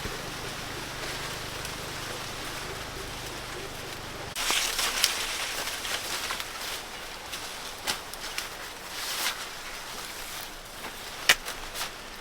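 Dry corn plants rustling as they are handled, with scattered sharp snaps and cracks. Before that, a steady low hum cuts off about four seconds in.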